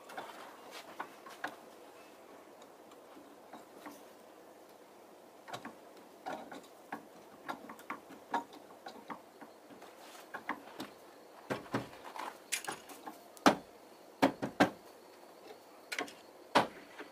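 Irregular small clicks and knocks as a black workpiece is set down, shifted and clamped on a bench drill press's metal table and the chuck is handled; the drill motor is not running. The knocks come sparsely at first, then thicker and louder in the last few seconds.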